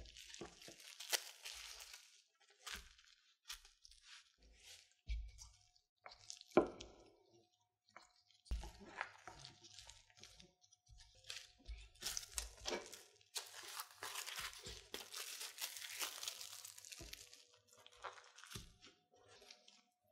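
Plastic cling wrap crinkling and rustling around butter cookie dough as it is folded and then rolled flat with a wooden rolling pin, with scattered light knocks on the wooden board.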